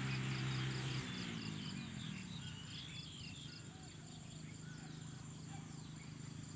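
Insects chirring in a rapid pulsing rhythm, about four pulses a second, with scattered faint chirps. A low steady drone cuts off about a second in and trails away.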